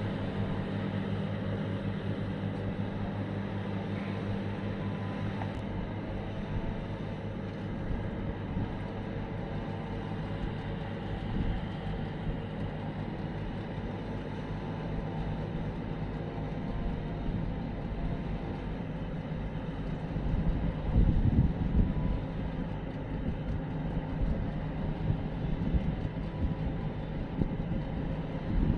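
Tugboat diesel engines running steadily with a low, even drone, swelling louder for a couple of seconds about three-quarters of the way through.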